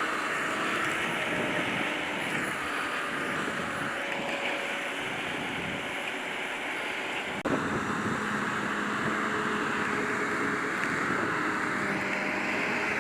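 Grimme Varitron 270 potato harvester working, its engine and machinery running steadily with a mix of held tones. The sound shifts abruptly about halfway through.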